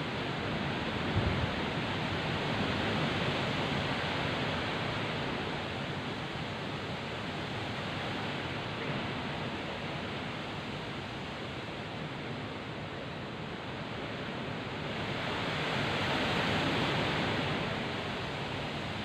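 Heavy rain and strong wind in a storm: a steady rushing noise that swells louder twice as gusts come through. A brief low thump about a second in.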